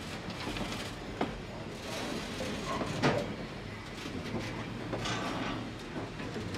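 Freight cars, a hopper and a caboose, rolling slowly along the rails: a steady rumble with a few sharp clanks and knocks, the loudest about three seconds in.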